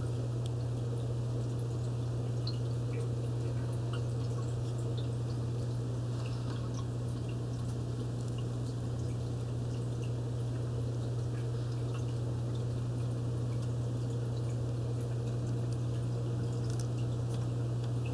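Aquarium filter running in a turtle tank: a steady low hum with water trickling and scattered faint drips.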